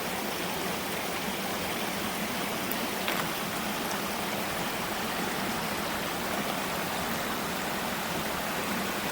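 A stream running steadily: a constant rush of flowing water.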